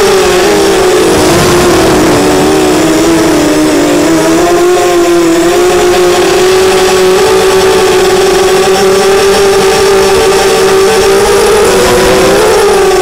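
ZMR250 quadcopter's Cobra 2208 2000 kV brushless motors spinning HQ 5045 propellers, heard from the onboard camera as a loud, steady whine. Its pitch dips and wavers in the first few seconds, holds steady, then rises near the end as the throttle changes.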